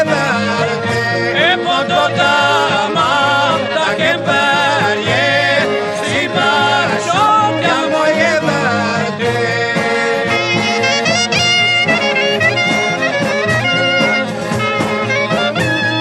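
Albanian folk ensemble music: a wind instrument plays a wavering, heavily ornamented melody with quick runs over steady accompaniment.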